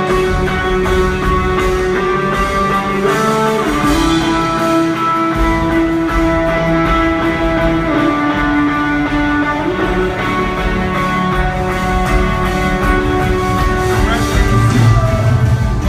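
Band music led by guitar, with long held notes that bend in pitch over a steady bass.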